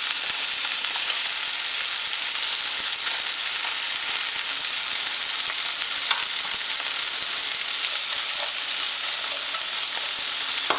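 Steady sizzle of food frying in hot oil in a pan, with a few faint light ticks.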